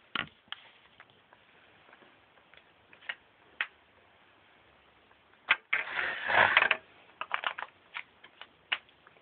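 Plastic parts of a build-your-own sonic screwdriver toy being handled and slotted together: scattered sharp clicks, with a louder, denser run of clicking and clatter a little past halfway.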